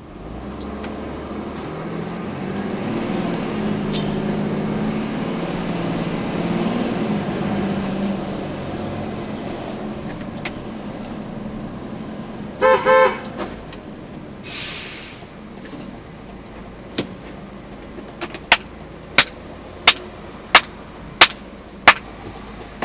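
Truck's engine heard from the cab, pulling away and speeding up, then easing off. About 13 seconds in, two short horn blasts sound, followed by a brief hiss. From about 18 seconds on come loud, sharp ticks, evenly spaced about 0.7 s apart.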